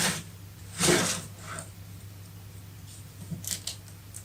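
Lego bricks and plates being handled: a short plastic rustle about a second in, then a few light clicks near the end, over a steady low hum.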